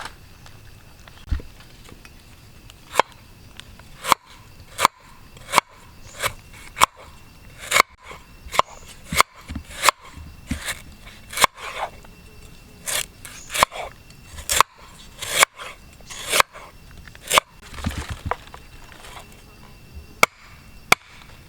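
A series of sharp knocks at an uneven pace, roughly one to two a second, starting about three seconds in.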